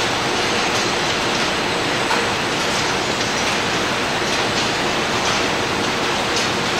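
Steady factory-floor noise of car-body conveyor machinery: an even, rushing hiss with faint scattered clicks.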